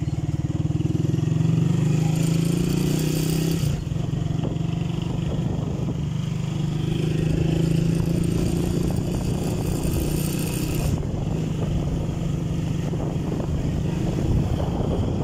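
Small motorcycle engine running under way, pulling harder over the first few seconds, easing off sharply about four seconds in, then pulling again for several seconds with a rushing hiss before settling to a softer steady run.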